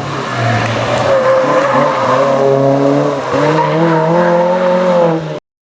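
Rally car engine running hard at high revs on a stage, its pitch shifting, with a brief dip about three seconds in. The sound cuts off suddenly near the end.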